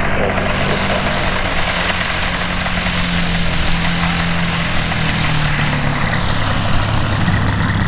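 Propeller engine of a large-scale radio-controlled Pilatus PC-6 Porter model, a steady drone as it flies in low to land on grass; its pitch drops a little about five seconds in.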